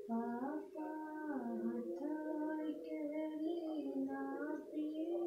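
A woman singing a Bhojpuri wedding folk song (vivah geet) solo and unaccompanied, in long held notes that slide between pitches.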